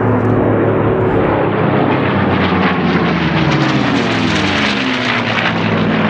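Several piston-engined propeller racing planes passing low overhead. Their engines run as a loud, steady drone, and the pitch falls as the nearest plane goes by around the middle.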